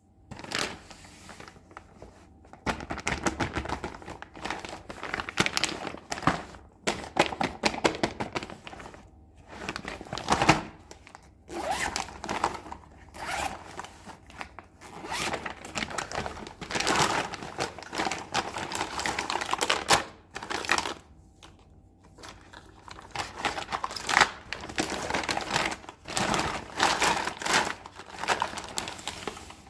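Unboxing of a miniature plastic toy kitchen set: packaging crinkling and tearing, with small plastic pieces clicking and tapping in irregular bursts separated by brief pauses.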